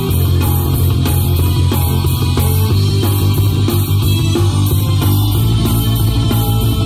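A live rock band playing loudly and steadily: electric guitar, bass guitar, drum kit and keyboard together through the stage PA.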